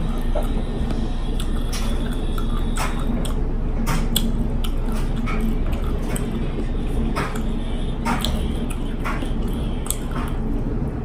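Fingers stuffing rice into a small sweet pepper and touching the plate: scattered faint clicks and soft squishes, over a steady low hum.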